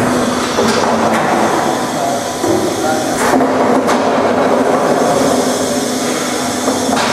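Concrete block making machine (vibropress) running: a steady mechanical hum and rattle with several sharp metal clanks, as a pallet of freshly pressed concrete blocks is moved out on the chain conveyor.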